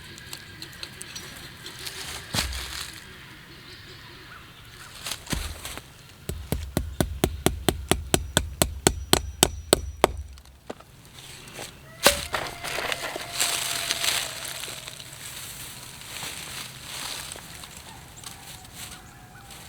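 Manual work noises: a couple of knocks, then a fast run of sharp clicks, about five or six a second and growing louder, over a low rumble for about four seconds, then a single sharp clank that rings briefly.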